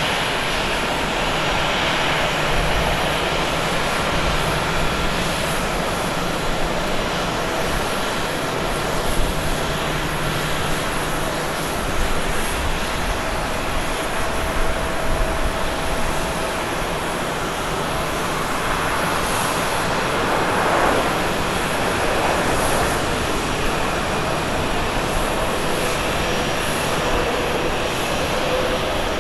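Jet engines of a Delta Airbus A330-900neo (Rolls-Royce Trent 7000 turbofans) on landing: a steady engine hum through the final approach, touchdown and rollout, with a swell of noise about two-thirds of the way in.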